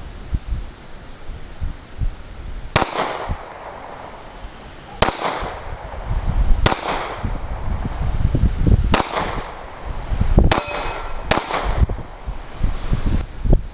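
Six shots from a Kahr CM9 9mm pocket pistol, fired one at a time one to two seconds apart, the first about three seconds in. A brief metallic ring follows the fifth shot.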